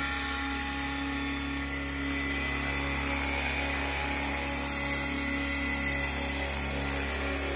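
Align T-Rex 500 radio-controlled helicopter flying low and hovering: a steady whine from its electric motor and drive gears over the whir of the main rotor.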